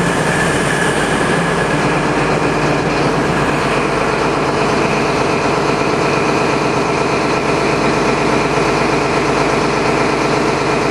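Class 222 Meridian diesel multiple unit's underfloor Cummins diesel engines running steadily.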